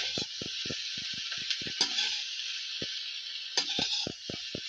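Cauliflower florets sizzling in a little oil in a kadai, a steady hiss, with soft regular taps about five a second that pause for about a second midway.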